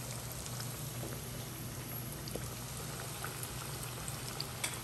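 Cornstarch-coated chicken pieces deep-frying in a pot of hot oil on their second fry to crisp them: a steady bubbling sizzle dotted with small pops. A steady low hum runs underneath.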